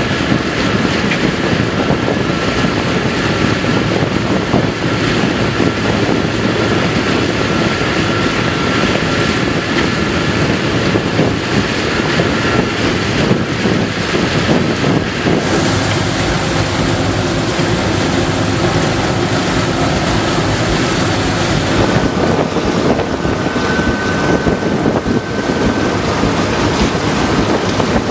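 Train ploughing through floodwater over the track: a loud, steady rush of churning, splashing water mixed with wind on the microphone and the running of the train. A low droning engine note stands out for several seconds past the middle.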